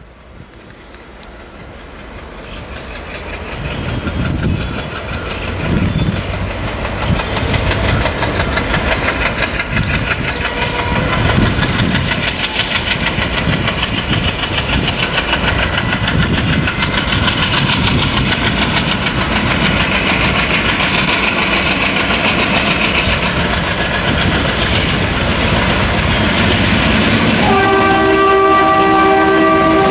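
ALCo WDM-3A diesel locomotive's V16 engine chugging hard under load as it hauls a passenger train past, the sound growing louder over the first few seconds as it approaches; the heavy black exhaust marks an engine working hard. Near the end its multi-tone horn sounds in several blasts.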